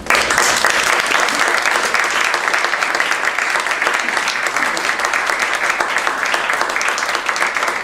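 Audience applauding, the clapping breaking out suddenly and staying steady, as a song ends.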